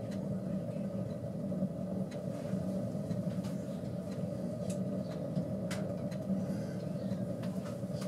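Home-built rocket stove wood-pellet heater burning with a steady low rumble, turned down to a small air gap, with a few faint ticks.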